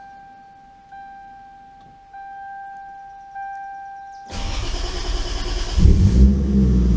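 Mk4 Toyota Supra's 2JZ-GTE straight-six being started: a steady electronic chime sounds in the cabin, then the starter cranks from about four seconds in, and the engine catches near six seconds and keeps running loudly.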